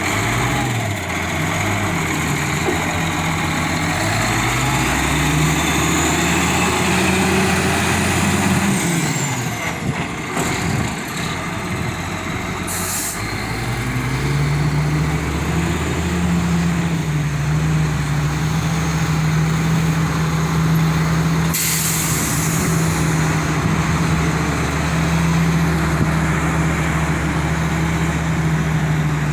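Diesel engine of a Badger 670 mobile excavator running, its speed rising and falling for several seconds, then dropping, then climbing and holding steady at a higher speed. Two short hisses of air break in, one about halfway through and one later.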